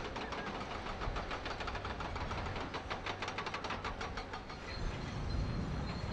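Heavy construction machinery at work: an engine running under a rapid, even clatter of about five or six metallic knocks a second.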